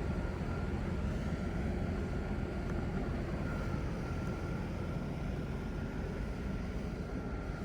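Small gasoline engine of lawn equipment running steadily under load while cutting grass, with a faint steady whine over it.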